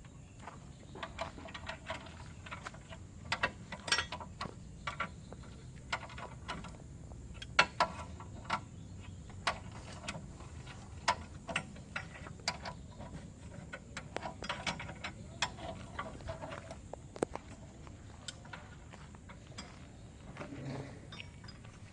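Irregular sharp metal clicks and knocks of hand tools and steel parts being worked on an excavator's track undercarriage. Clicks are thickest in the first three-quarters and thin out near the end.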